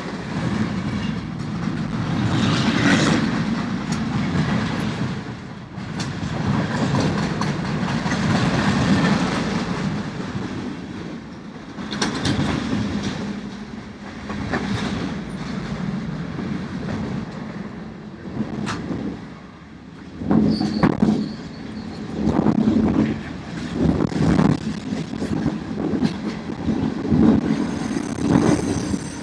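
Train rolling past, a low rumble that swells and fades, with sharp clicks and wheel clatter on the rails. About two-thirds of the way through, the clatter turns rhythmic, with pulses roughly once a second.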